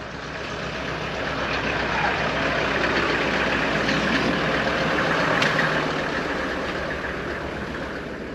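Motor vehicle engine idling: a steady low hum under a broad rushing noise that grows louder over the first few seconds and eases off toward the end.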